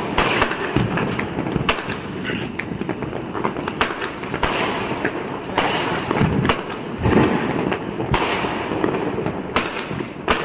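A 160-shot aerial firework cake firing, its shells going off one after another in a rapid, irregular series of bangs.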